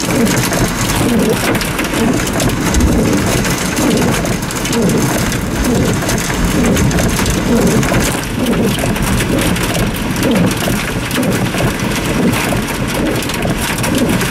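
Torrential thunderstorm rain drumming hard and steadily on the roof and windshield of a car, heard from inside the cabin as a dense, unbroken patter of impacts.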